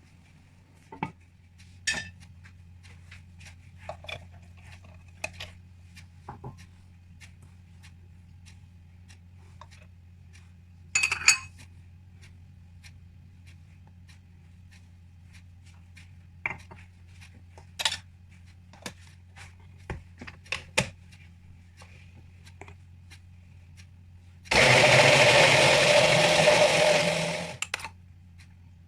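Scattered clicks, knocks and clinks of kitchen utensils, with a louder clatter about a third of the way through. Near the end, a loud, steady whirring noise with a steady hum runs for about three seconds, then cuts off.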